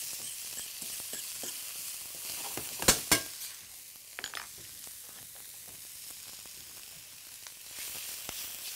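Chopped carrot, ginger, garlic and green onion sizzling in hot oil as they are stir-fried in a stainless steel pan, a steady high hiss. About three seconds in, two sharp knocks of the utensil against the pan, with a few lighter clicks just after.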